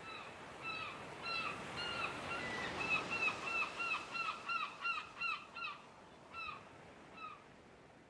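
A gull calling a long series of short, pitched notes, about three a second at its quickest, growing sparser and stopping near the end, over a steady background hiss.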